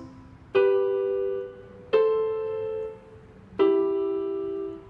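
Chords played on an electronic keyboard, three in turn, each struck, held for about a second and released before the next.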